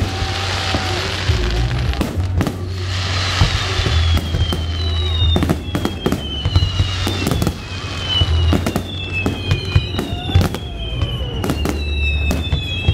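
Aerial fireworks display: shells bursting in a rapid, irregular series of loud bangs, with a run of falling whistles from about a third of the way in.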